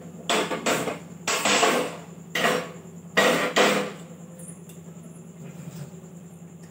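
A hand-held flint gas lighter struck four times at a gas stove burner, each stroke a scratchy rasp about half a second long, roughly a second apart, until the burner is lit.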